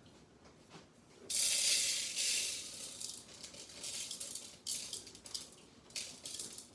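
Tiny dried soybean pieces spilling and rattling out of a cut-open bean-bag squishy: a hissing rush about a second in, then several shorter bursts.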